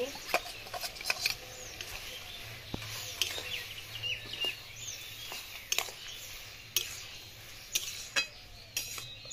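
Metal spatula scraping and knocking against a metal karai as chopped bottle gourd is stirred, with irregular knocks one or two a second.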